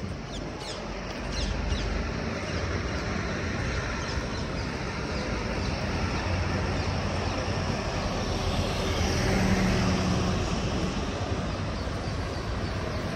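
City street traffic: a steady mix of vehicles running, with one passing louder about nine or ten seconds in.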